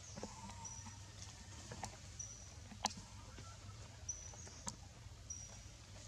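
Outdoor ambience: a short, high, thin note repeats about every second and a half over a low steady hum, with a few sharp clicks, the loudest near the middle.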